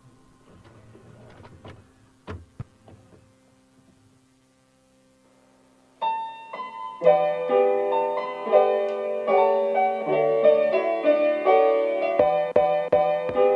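Faint clicks over a low steady hum, then about six seconds in background piano music begins and plays on, with a few sharp clicks near the end.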